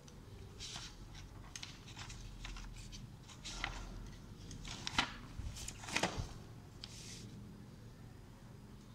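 Faint rustling and light clicks of hands handling things on a desk, with a few sharper clicks in the middle.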